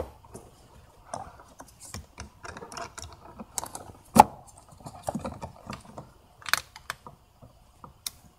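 Scattered clicks and light rattles of hose clamp pliers working a spring clamp onto a plastic engine intake hose, with one loud sharp click about four seconds in.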